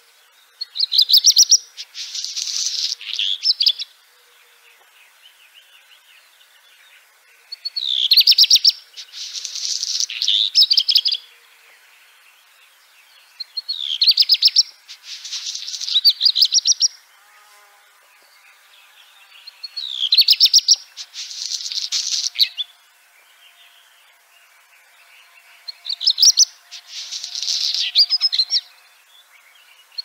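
Black redstart singing: five song phrases, about one every six seconds. Each is a quick run of high rising notes, then a scratchy, crackling stretch, then a few closing notes.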